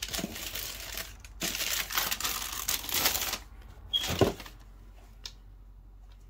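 Close handling noise from a pair of leather sneakers being turned over and shown: rustling and rubbing for about three seconds, then a single knock about four seconds in.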